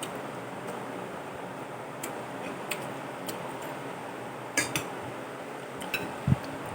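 Eating utensils clicking against a plate several times at uneven intervals, with a low thump near the end, over a steady faint hiss.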